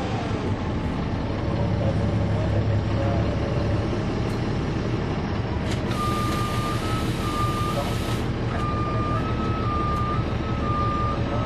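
Bus diesel engine (Caterpillar C13) running, heard from on board, with a falling whine at first as it slows. About six seconds in there is a burst of air hiss lasting about two seconds, and a warning beeper alternates between two close tones for about five seconds.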